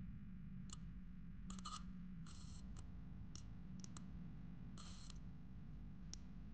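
Bare copper wire ends tapped and scraped against the pads of an LED bulb's circuit board: a scatter of faint clicks and short scratchy crackles, about eight in all, spread unevenly over the few seconds.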